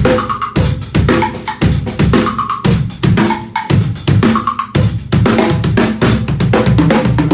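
Tama Starclassic acoustic drum kit played in a busy, continuous pattern: bass drum, snare and cymbals struck many times a second, the drums ringing on after the hits.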